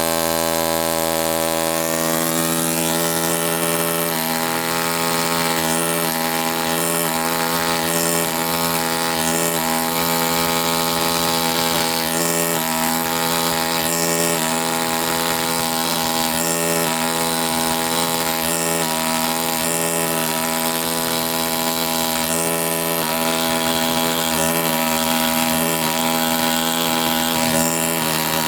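ZOIC PalaeoTech Bronto pneumatic air scribe running: a loud, steady buzz of fixed pitch with a hiss over it.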